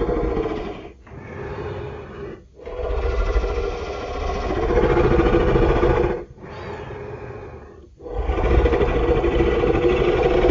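Gorosaurus monster roar sound effects: a run of rough, pitched roars with short breaks between them. The loud roars alternate with quieter ones, and the longest loud roars fall in the middle and at the end.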